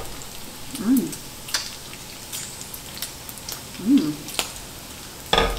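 Slices of pork belly sizzling on an electric griddle, a steady hiss with scattered crackling pops. Two short hummed "mm" sounds from the eater come about a second in and about four seconds in, and a sharp knock comes near the end.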